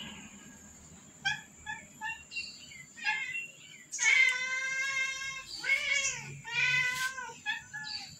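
Domestic cats and kittens meowing: a few short, high-pitched mews, then a long meow about four seconds in, followed by two more meows that rise and fall in pitch.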